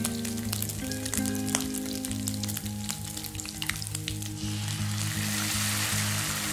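Pork ribs frying in hot oil in a pan, crackling with many small pops. About four and a half seconds in, soy sauce and cooking wine hit the hot pan and the sizzle swells into a dense, louder hiss. Soft background music with held notes plays underneath.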